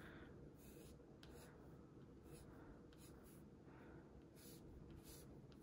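Faint pencil scratching on paper in a series of short, quick strokes, sketching fine tree branches.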